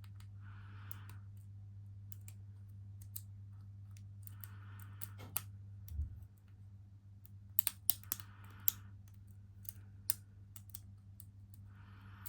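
Lock picks working in the keyway of a small Master Lock 9130 padlock: light, irregular ticks and clicks of the pick and tension wrench against the pins and plug, with a cluster of sharper clicks about eight seconds in.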